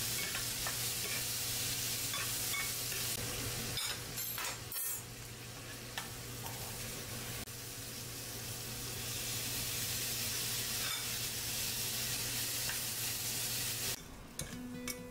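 Diced pork neck sizzling in a stainless steel frying pan, with metal tongs clicking and scraping against the pan as the meat is stirred. About four to five seconds in there is a short clatter as chopped vegetables go in, and the sizzle carries on until it drops away near the end.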